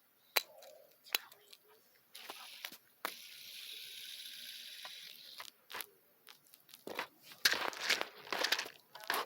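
Simple dimple spinner fidget toy being demonstrated: a couple of sharp clicks, then a steady whirring spin for about three seconds, then a quick run of clicks and rustles from handling near the end.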